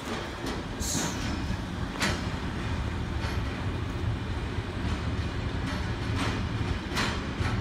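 Freight train of container wagons rolling through at a steady low rumble, with a few sharp clacks of wheels over the rail joints and a brief high squeal about a second in.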